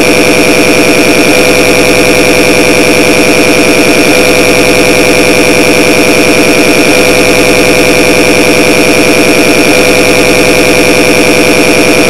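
Loud, harsh, continuous electronic noise made to annoy: a steady piercing high tone over layers of fast-warbling lower tones, at full volume without let-up.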